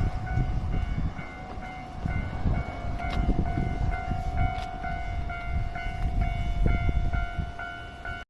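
Japanese railway level-crossing warning bell ringing: an even, repeating electronic ding of about one and a half strokes a second, over low wind rumble on the microphone.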